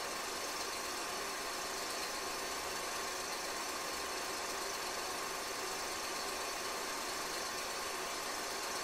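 Diesel locomotive engine running steadily under an even hiss, unchanging in level throughout.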